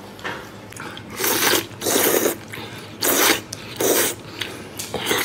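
A person slurping wide starch noodles (fentiao) up from a bowl of stew: four loud sucking slurps about a second apart, starting about a second in.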